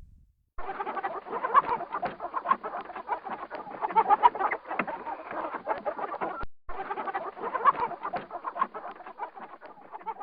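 A flock of fowl calling together, many short clucking calls overlapping in a dense chatter. There is a brief break about six and a half seconds in.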